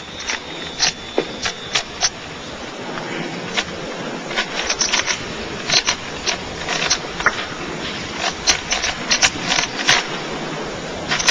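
Rubik's Cube being twisted rapidly during a speed solve: a fast, irregular run of sharp plastic clicks, sparse at first and coming thicker after about four seconds, over a steady low background noise.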